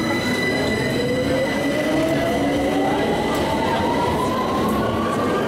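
London Underground tube train pulling out of the platform, its traction motors giving a whine that rises steadily in pitch as it picks up speed, over the rumble of the wheels and cars.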